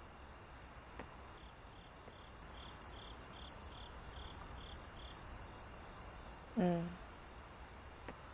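Crickets chirping, about two to three chirps a second over a steady high ringing, with a brief human voice sound, short and pitched, about six and a half seconds in.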